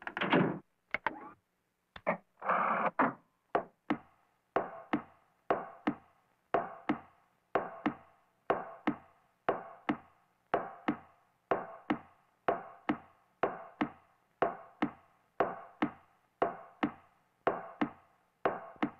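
Footsteps going down a stairway, an even walking beat of about two steps a second, each step echoing briefly. A door opens with a couple of short noises near the start.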